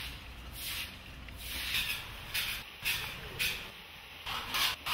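A stiff broom sweeping wet concrete: a swishing scrape with each stroke, coming at an uneven pace of about one or two strokes a second.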